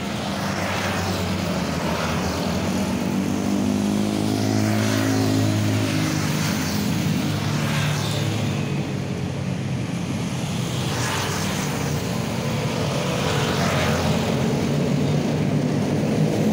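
A motor engine running, its pitch drifting up and down a little, with a few brief hissing rushes.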